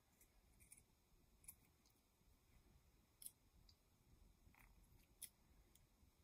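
Faint, irregular snips of small craft scissors cutting felt, each a short soft click of the blades.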